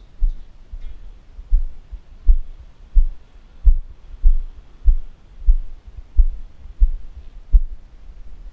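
Walking footsteps carried through a body-worn GoPro action camera: a steady run of dull, very low thuds, about one and a half a second.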